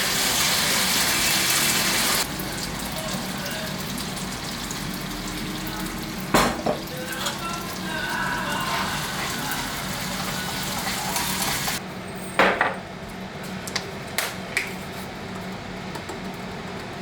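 Food sizzling in a frying pan, with a few sharp clinks of a utensil against the pan. The sizzle is loudest for the first two seconds and gets thinner about twelve seconds in.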